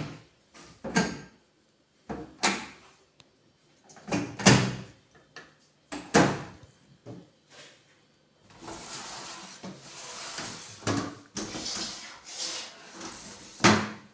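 Aluminium-framed kitchen cabinet doors with composite-panel (ACP) fronts being opened and shut, giving a series of sharp clacks and knocks about a second or two apart. In the second half a stretch of rough scraping noise runs between the knocks.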